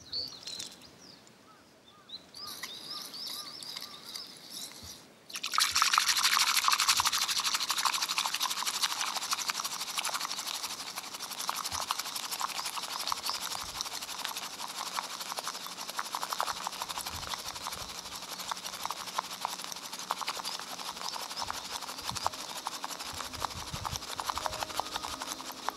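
About five seconds in, a bamboo matcha whisk starts beating matcha in a tea bowl: a fast, steady, scratchy frothing of tines against the bowl and liquid that keeps up without a break.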